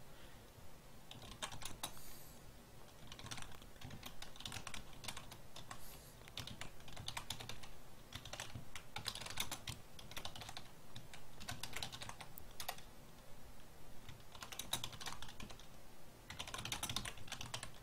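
Typing on a computer keyboard: runs of quick keystrokes with short pauses between them.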